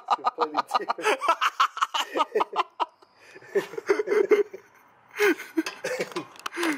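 Men laughing: a fast run of ha-ha pulses for about the first three seconds, then a few shorter laughs and chuckles.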